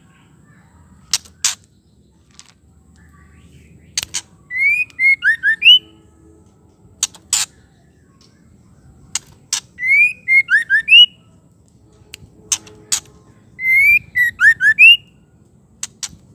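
Female white-rumped shama calling: three short chattering phrases of quick gliding whistled notes, about four to five seconds apart, with sharp clicking tack notes, mostly in pairs, between them.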